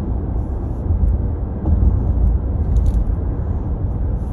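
Steady low rumble of a moving car, heard from inside the cabin while driving along the road.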